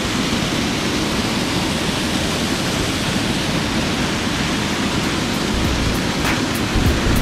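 Waterfall cascading over rock: a steady, loud rush of falling water. A faint rhythmic beat of background music fades in near the end.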